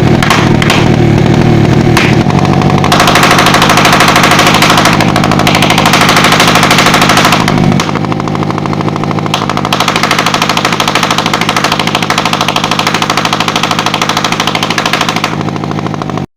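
Small carburetted engine running with rapid, even firing pulses. It shifts in pitch and loudness about three seconds in and again near eight seconds.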